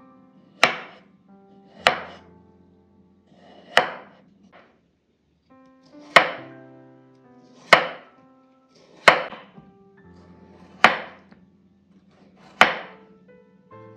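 Chef's knife slicing through a raw peeled potato and striking a wooden cutting board: about eight sharp chops, one every one and a half to two seconds.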